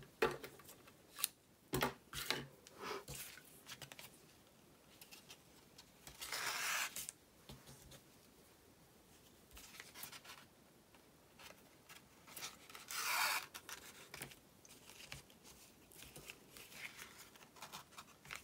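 Brown suede ribbon being worked by hand: pulled off its plastic spool, cut, and threaded through punched holes in a cardstock pillow box. A few light clicks come in the first three seconds, and there are two louder scraping rubs of about a second each, around six and thirteen seconds in.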